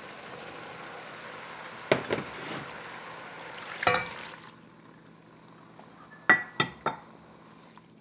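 Tomatoes and broth going into an enameled Dutch oven with a steady hiss and a few soft knocks as they land; the hiss falls away about halfway through. Near the end, three quick sharp clinks of a glass bowl and the pot.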